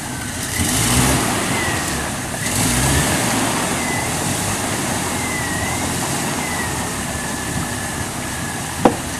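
Engine of a Jeep Wrangler TJ stuck in an icy water hole, running steadily and swelling twice in the first few seconds. There is one sharp knock near the end.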